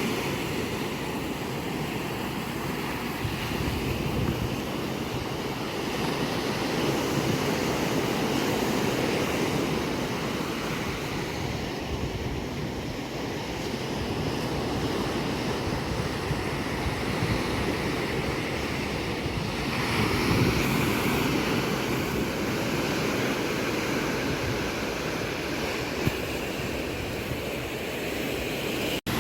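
Sea surf breaking and washing up the shore, a steady roar of water that swells and eases as waves come in, with a brief cut in the sound near the end.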